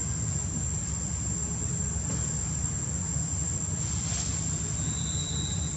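Insects droning steadily at a high pitch over a constant low rumble, with a brief faint higher tone about five seconds in.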